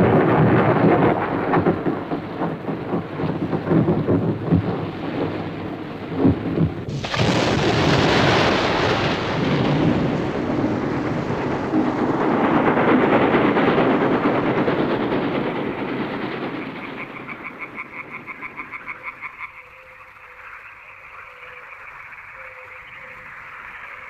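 Cartoon sound effects: dense rumbling, crackling noise with a sudden loud crash about seven seconds in that slowly fades away. It gives way to frogs croaking in rapid, even pulses through the last few seconds.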